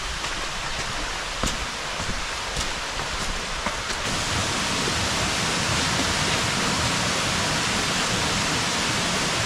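Steady rush of a forest river and waterfall, growing louder about four seconds in, with a few light knocks in the first seconds.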